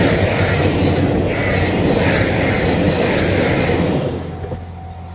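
KiHa 261 series diesel multiple-unit express train passing close by at speed, a loud rushing rumble of running gear and engines. It holds for about four seconds, then fades quickly as the train moves away.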